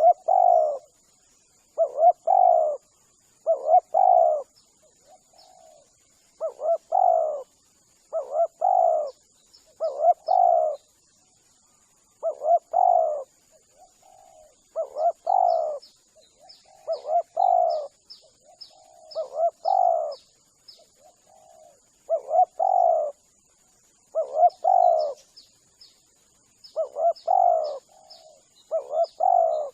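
Spotted dove (tekukur) cooing over and over, each phrase two or three coos, repeating about every two seconds, played as a lure call to draw in wild doves. Faint short high chirps from a small bird come in from about halfway, over a faint steady high tone.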